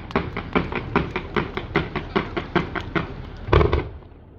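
Fireworks going off in a rapid, even run of bangs, about five a second, with a louder cluster of bangs near the end before it dies away.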